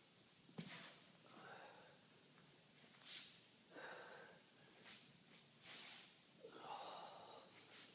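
Faint, hard breathing of a person exercising: quick audible breaths in and out, about one a second, with a few light knocks.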